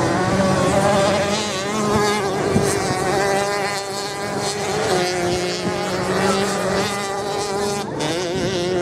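Dirt bike engines revving on a beach race course, a buzzing note whose pitch keeps rising and falling with the throttle.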